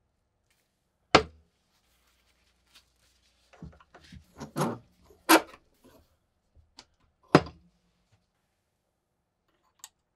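Bench vise and knife parts being handled: three loud, sharp knocks about a second, five seconds and seven seconds in, with a run of smaller clicks and rattles between them.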